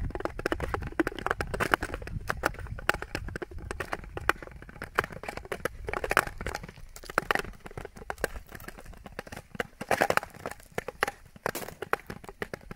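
Ice skates striding over clear, new lake ice: scraping blade strokes mixed with many sharp clicks and cracks from the ice, with louder clusters about halfway through and near the three-quarter mark.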